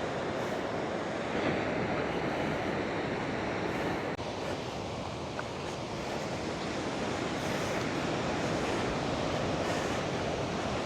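Big Atlantic swell breaking and rolling in below a cliff, a steady rush of surf, with some wind on the microphone.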